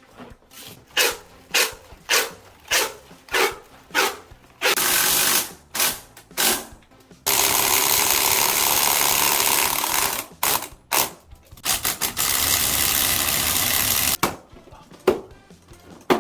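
A power tool running in short bursts about half a second apart, then in longer runs of one to three seconds.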